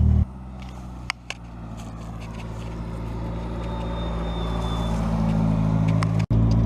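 Car engine running with a steady tone, growing gradually louder over several seconds as it comes closer, with two light clicks about a second in.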